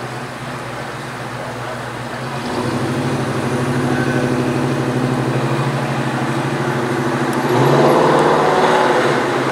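Classic hot-rod or muscle-car engine running at low revs with a pulsing exhaust note. It grows louder about two and a half seconds in and is loudest near the end as the car comes close.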